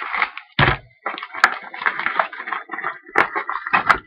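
Packs of 2013 Momentum football cards being handled and taken out of their cardboard box: crinkling wrappers and scraping cardboard with many small clicks, and a dull thump a little over half a second in.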